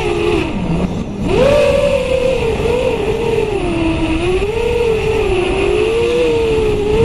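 Electric motors and propellers of a small drone heard from on board, a steady whine whose pitch rises and falls with the throttle. It drops low briefly under a second in, then climbs back at about a second and a half, with wind rushing on the microphone underneath.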